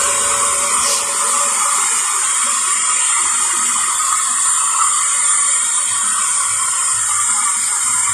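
Small handheld hair dryer blowing steadily as it dries a wet kitten's fur.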